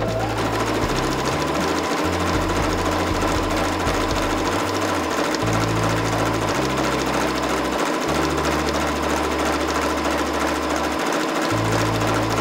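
Electric household sewing machine running steadily, stitching down the fold of a fabric bag-handle strip.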